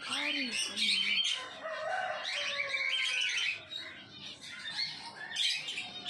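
Rose-ringed parakeet giving a run of high chirps and short squawks that ease off past the middle and pick up again near the end.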